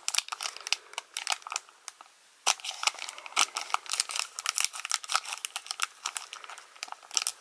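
Foil wrapper of a Yu-Gi-Oh! booster pack crinkling and crackling in rapid short bursts as it is pulled open by hand, with a brief lull about two seconds in.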